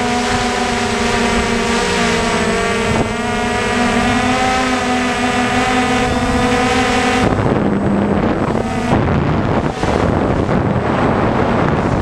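DJI Phantom 1 quadcopter's motors and propellers humming at a steady, slightly wavering pitch, picked up by its onboard camera with wind on the microphone. About seven seconds in, the hum fades under rushing wind noise.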